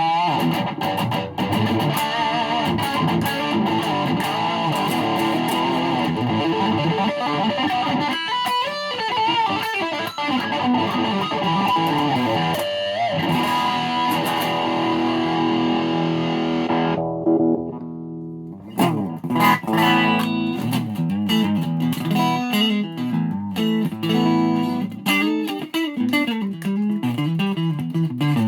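Ibanez SA260 electric guitar played continuously through an effected tone, chords and runs of notes. About two-thirds of the way through, the sound briefly thins out and drops before the picked notes start again.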